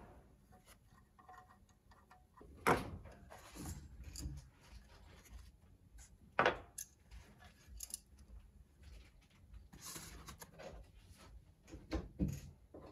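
Scattered clicks and knocks of small metal parts being handled on a wooden workbench: a screwdriver backing out the last bolts of a filter wheel's camera adapter and being set down, and the metal adapter ring lifted off and placed on the bench. Two knocks, about three and six and a half seconds in, stand out.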